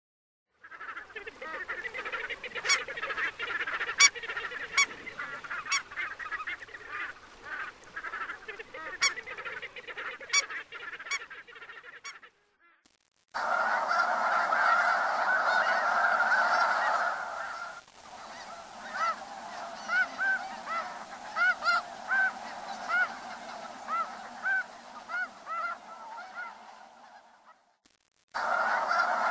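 Two recordings of geese calling. The first is a flock honking and cackling, with sharp clicks among the calls. After a short silence about twelve seconds in comes a snow goose flock: a dense chorus of high honks, with single rising calls standing out in the second half.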